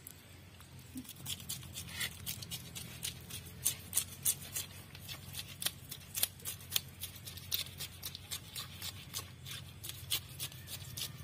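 Scales being scraped off a rohu fish with a hand-held scraper: rapid, irregular scratchy clicks, several a second, over a faint low hum.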